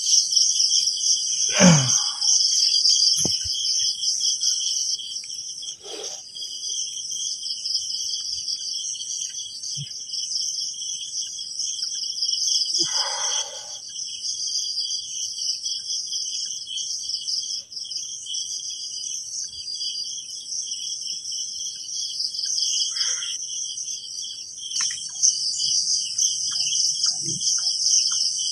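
A night chorus of crickets and other insects: a steady, high-pitched pulsing trill. A few brief soft noises cut across it, the loudest a short sound falling in pitch about two seconds in.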